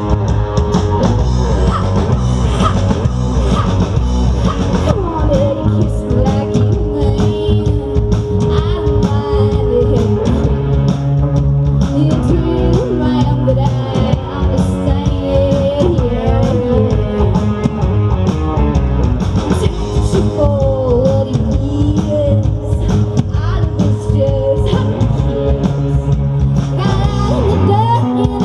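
Live rock band playing: a woman singing over electric guitar, bass guitar and drum kit, amplified through a PA.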